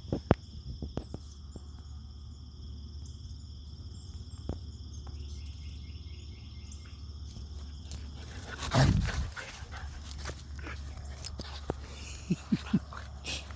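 Pit bull puppy making small play sounds while mouthing, with one louder burst about nine seconds in and a few short, pitched yips near the end.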